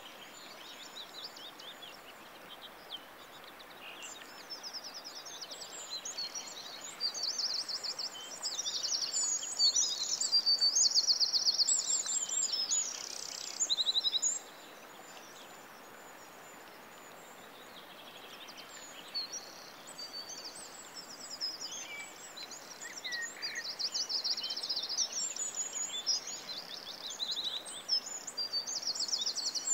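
Birdsong sound effects: mixed songbirds chirping and trilling over a steady soft hiss. The songs are busiest and loudest from about eight to fourteen seconds in, fall away for a few seconds, then pick up again.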